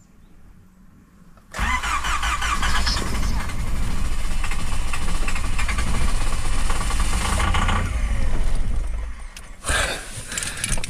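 Starter cranking a Chang'an Antelope car's engine for about eight seconds without it catching, then a short burst again near the end. The engine is hard to start in the cold at high altitude.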